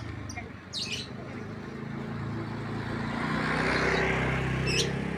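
A road vehicle driving past, its engine and tyre noise growing louder to a peak about four seconds in, then easing off.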